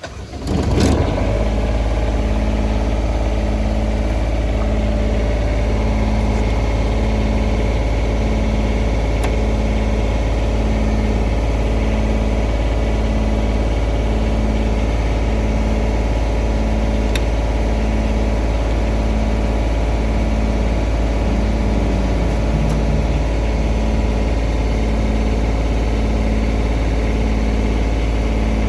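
Diesel engine of a Denyo DAT-270ES2 engine welder/generator starting: it cranks and catches within the first second, then runs steadily at idle. Its hum has a slow, even pulse about once a second.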